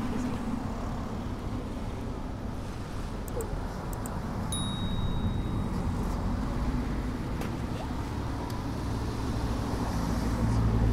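Passing motor traffic: a steady low engine rumble that grows louder near the end, with a short high beep about halfway through.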